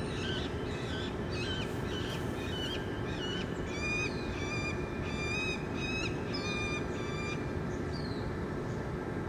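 Juvenile peregrine falcon calling, a steady series of short repeated notes about two a second that stops near the end, over a steady low background hum.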